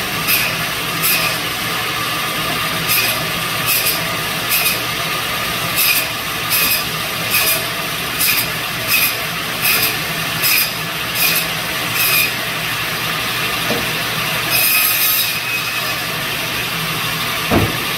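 Biro Model 55 meat band saw running steadily, its blade cutting bone-in pork loin into chops: a short rasping stroke through the bone about every second for the first twelve seconds, then one longer cut about three-quarters of the way in.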